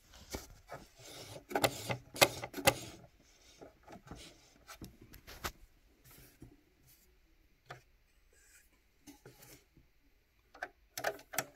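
Close handling noise: a hand and knit sweater sleeve rubbing near the microphone, with scattered small clicks. The rubbing is busiest in the first three seconds and thins to a few light clicks after that.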